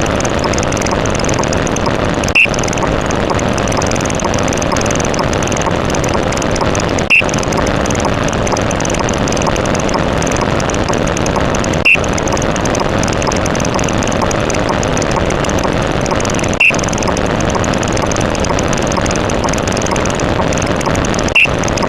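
A steady, loud engine-like drone that cuts out for an instant about every five seconds. Each cut is followed by a short high beep, five in all.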